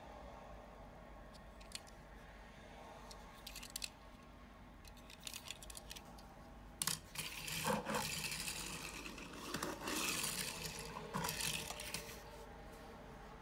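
Welly diecast Trabant toy car handled with a few light clicks, then pushed along a tabletop: a rough rolling and scraping of its small wheels that starts about halfway through and stops near the end.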